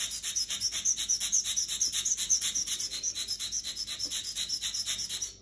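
Steel blade of a dental universal curette rubbed rapidly back and forth on a water-lubricated India stone: a steady gritty scraping of about six strokes a second, stopping abruptly at the end. It is the sound of a very dull blade being ground sharp.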